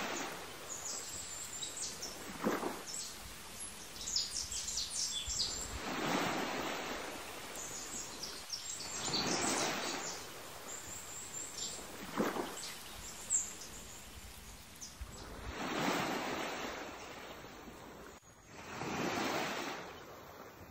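Waves washing in, swelling and fading every few seconds, with small birds chirping over them.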